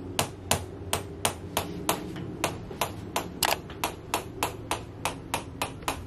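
Handheld chiropractic adjusting instrument tapping against the neck in a steady series of sharp clicks, about three a second.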